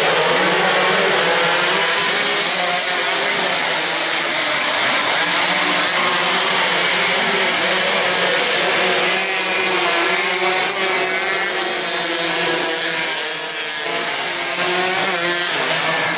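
A pack of racing motorcycles at high revs, many engines running together. Their pitches weave up and down as the riders shift and pass.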